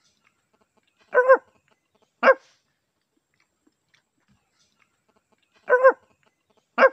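A dog barking: four short barks in two pairs, about three seconds apart, with dead silence between them.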